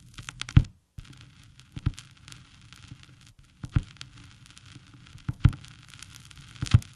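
Steady crackling hiss with sharp pops every second or two, the loudest about half a second in and near the end. The sound drops out completely for a moment near the start.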